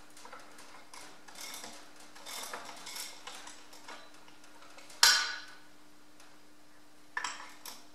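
Ratchet wrench clicking in short runs on a bolt of the tractor's front axle housing, a bolt too loose for the ratchet to work cleanly. A sharp metal clank comes about five seconds in, and another near the end.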